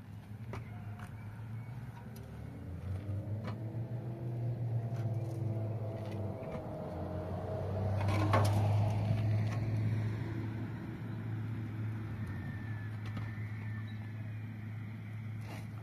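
A motor vehicle's engine running, its hum and whine growing louder to a peak a little past halfway and then fading. Scattered light clicks and knocks of concrete blocks being handled, with one sharper knock at the loudest point.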